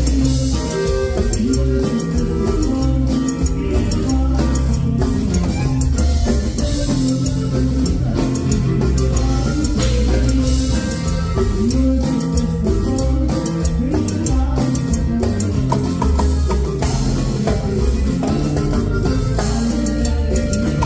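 Live band playing through a PA at a sound check: continuous music with a steady beat and a strong bass line.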